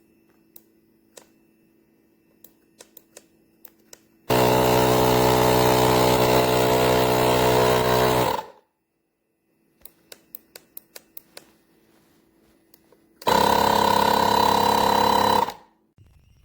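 Small electric air compressor built into a portable jump starter, running in two bursts: about four seconds starting some four seconds in, then about two seconds near the end, each starting and stopping abruptly with a steady buzzing hum. Sharp clicks come before and between the runs.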